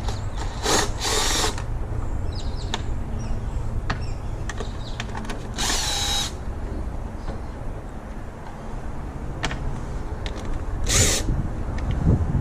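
A power drill/driver whirring in three short bursts, about five seconds apart: the engine cover's fasteners being run out. A steady low rumble lies underneath.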